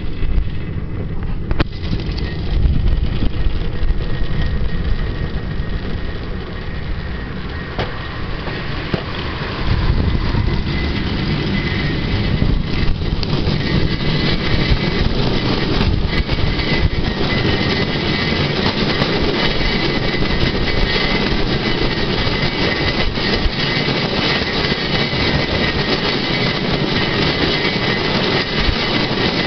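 Steel wheels of a pedal-powered Swedish rail bicycle rolling along old, overgrown railway track: a steady rumbling clatter with a few short knocks. The noise fills out about two seconds in.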